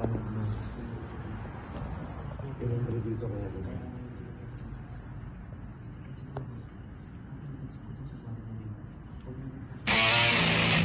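Crickets chirping in a steady, fast pulsing trill, with faint low muffled sounds underneath. About ten seconds in, loud guitar music starts abruptly.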